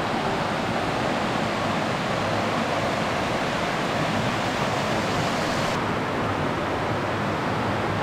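Mountain stream rushing over rock ledges and small cascades in a steady, even rush of water, running full after rain. The hiss turns slightly duller about six seconds in.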